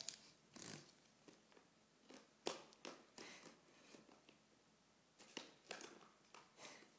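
Faint, scattered rustles and taps of a paperback activity book and papers being handled, the sharpest tap about two and a half seconds in.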